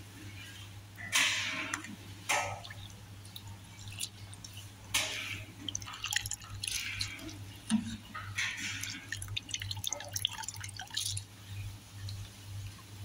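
Metal spoon stirring and scooping rice in a pot of liquid, with irregular splashes and drips every second or two. A steady low hum runs underneath.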